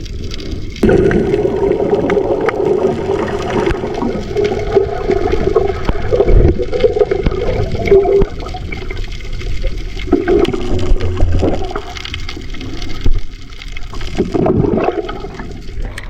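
Sea water sloshing and gurgling right against a camera's microphone in the water while snorkeling, loud and irregular.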